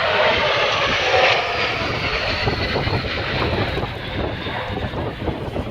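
Jet engine noise from the Patrulla Águila's CASA C-101 Aviojet trainers flying past in formation. It is loudest about a second in, then slowly fades as they move away.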